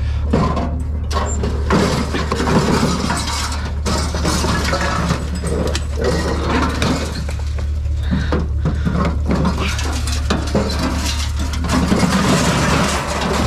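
Metal gas grill being lifted and shoved onto a pile of scrap metal in a pickup bed: irregular clanks, rattles and scrapes of sheet metal and steel knocking together, over a steady low hum.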